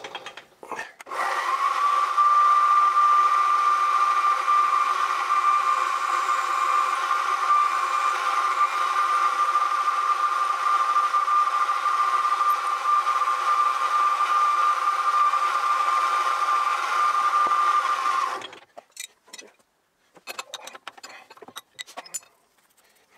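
Mill-drill spindle motor running at about 1000 rpm while the drill bores the gudgeon-pin hole, a steady whine that spins up about a second in and stops a few seconds before the end. Light clinks of hand tools follow.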